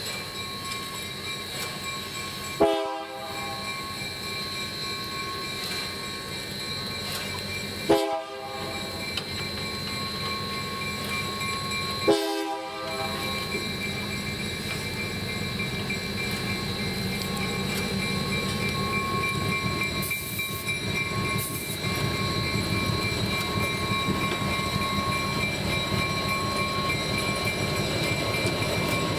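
Three short train horn blasts a few seconds apart. After them comes the low rumble of an EMD NW2 diesel switcher, growing steadily louder as it approaches and rolls past pulling passenger coaches.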